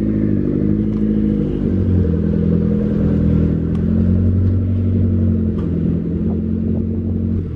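Nissan 240SX S14 drift car's engine idling, its pitch shifting slightly up and down a few times.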